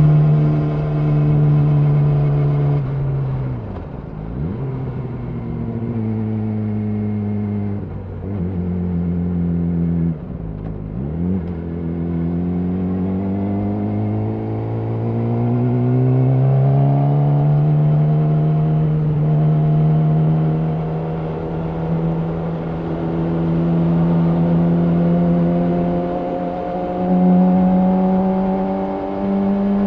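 Yamaha R6 inline-four sport bike engine through an Akrapovič slip-on exhaust while riding. The engine note dips quickly in pitch three times in the first eleven seconds, climbs steadily as the bike accelerates, then holds at a steady cruise with a slight rise near the end.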